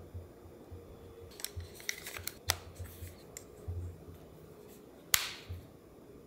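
The included protective case being pressed onto a Tecno Phantom X2 Pro smartphone by hand. Small scattered clicks and scrapes, then one sharp snap about five seconds in as the case clicks into place.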